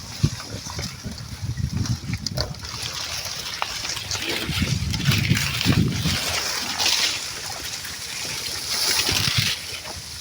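Farm animals splashing and sloshing about in water, with uneven bursts of splashing that are busiest in the second half.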